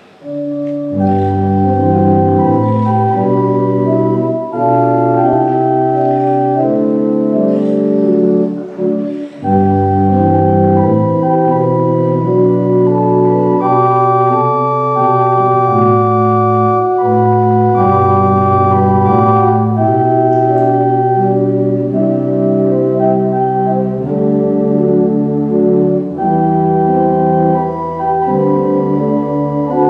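Church organ playing a prelude of sustained chords over low pedal notes, with a short break about nine seconds in.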